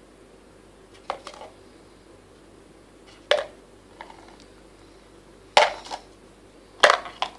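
Crayons dropped into a yogurt-tin crayon bucket, clattering against the container about six times, a second or two apart.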